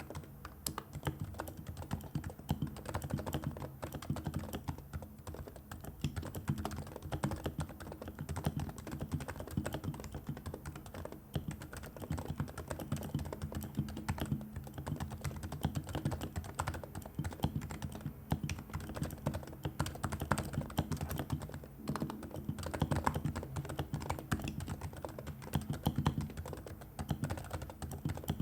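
Continuous fast typing on a Realforce R2 Topre keyboard fitted with silencing rings and PBT keycaps: a dense, unbroken stream of muted keystrokes with a low, deep tone.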